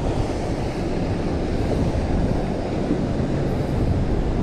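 Wind buffeting the microphone on an open boat: a steady low rumble.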